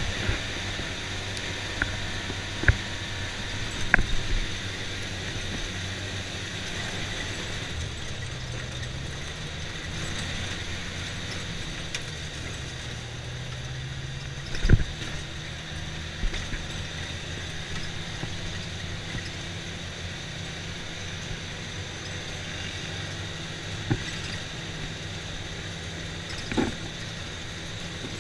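Side-by-side UTV engine running steadily while driving on a dirt track, its note rising and falling slightly, with a few short knocks and jolts along the way.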